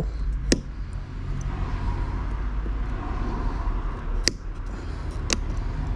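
Three sharp metallic clicks from pliers working a spring hose clamp on a motorcycle fuel hose, over a steady low rumble.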